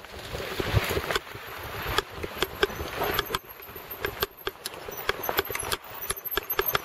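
Mountain bike clattering and rattling as it rides down a bumpy dirt trail, with many irregular sharp knocks from the bike jolting over the ground.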